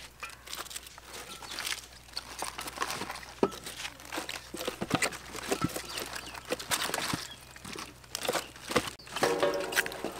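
Cabbage leaves being torn off and pressed by hand into a large aluminium pot: crisp leaf handling noise with many scattered small clicks and snaps.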